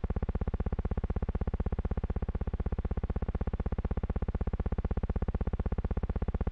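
Steady electronic buzz pulsing rapidly and evenly, never changing in pitch or level.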